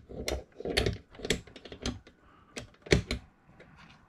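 Irregular clicks and knocks of a die-cast metal toy tractor-trailer being handled, its cab and trailer knocking together as they are lined up to couple. The loudest knock comes about three seconds in.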